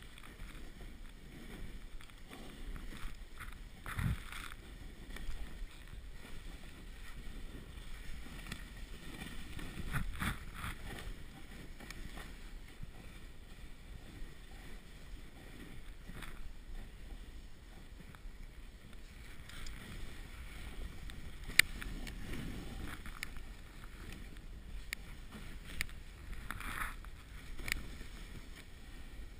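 Snowboard sliding and carving down packed snow: a steady scraping hiss from the board, with occasional knocks and one sharp click about two-thirds of the way through.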